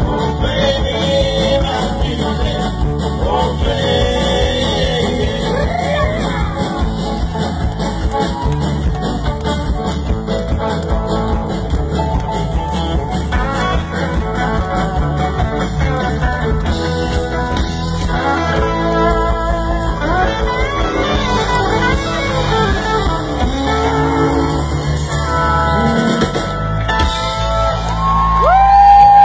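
Live country-rock band playing: guitars, bass and drums with a steady beat, with singing in places. Near the end a loud held note bends in pitch as the music swells.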